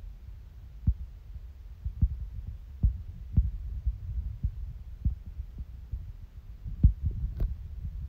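Low rumble with irregular soft thumps: handling noise of a handheld phone camera being moved, with a small click near the end.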